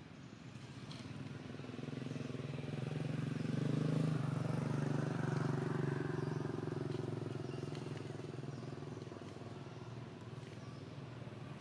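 A motor vehicle's engine passing by: the low, steady engine sound grows louder, peaks about halfway through, then fades away.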